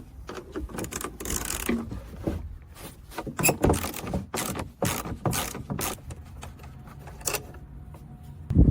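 Hand tools working on the bolts that hold a tractor seat's flip-up brackets: a run of irregular metallic clicks and clanks, with a loud thump near the end.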